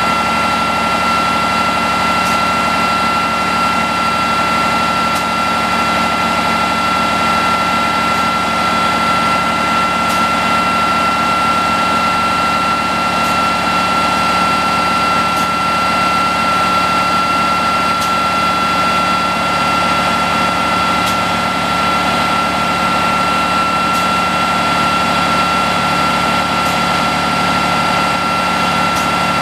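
1989 Unimog FLU419 SEE's diesel engine running steadily with a constant high-pitched whine over it, while the rear backhoe boom is worked on the hydraulics.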